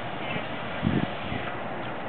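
Open-air ambience: a steady hiss with two low thumps about a second in.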